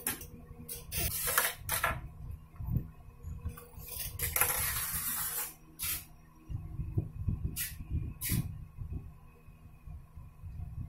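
Handling noise from cloth and thread: a few short sharp snips and clicks in the first two seconds as scissors cut the sewing thread, a longer rustling hiss about four seconds in, then more rustling and light clicks as the thread end is knotted in the fabric.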